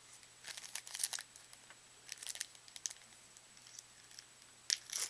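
Trading-card pack wrapper crinkling and tearing as it is handled and opened, in four short spells.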